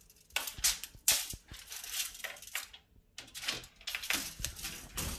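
Steel tape measure being handled against a wooden wardrobe panel: the blade scrapes and rattles in short irregular bursts, with a few sharp clicks.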